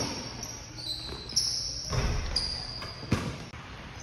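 A basketball dribbled on a hardwood gym floor: several bounces, unevenly spaced, each with a short echo.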